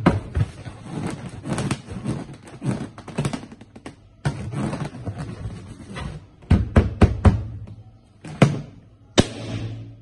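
Latex party balloons handled right at the microphone: rubbing, squeaking and thumping of stretched rubber, with a run of sharp knocks and taps in the second half.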